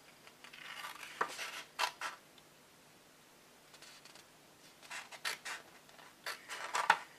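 Scissors snipping through patterned scrapbooking paper in short crisp cuts, in two spells with a pause of about a second and a half in the middle.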